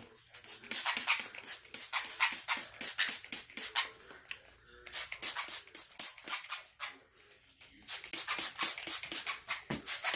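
Small parrots bathing: a quick, irregular run of water splashes and flutters, with a few faint chirps.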